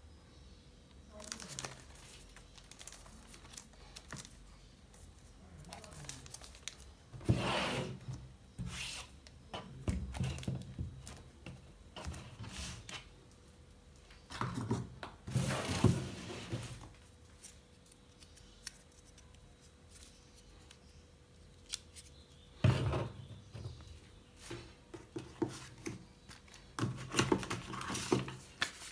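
Unboxing sounds of a MacBook Air's packaging: the white cardboard box and its inner parts and paper pack sliding and rubbing, and the laptop's protective plastic film rustling. Several knocks come as the laptop and box pieces are set down.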